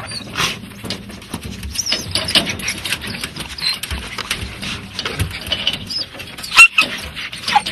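Excited podengo and beagle-cross hunting dogs shut in a metal-barred trailer, whining and yelping, with knocks against the cage; one sharp, loud yelp about six and a half seconds in.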